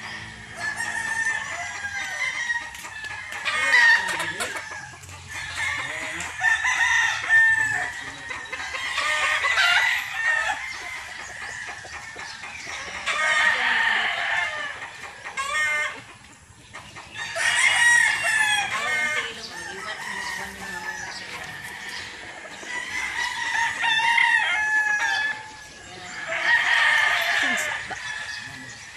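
Gamecocks crowing again and again, every few seconds, some crows overlapping one another, with clucking in between.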